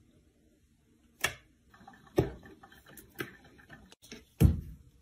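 A few separate sharp taps and knocks on a hard kitchen countertop, about five in all with fainter ticks between them, the loudest near the end.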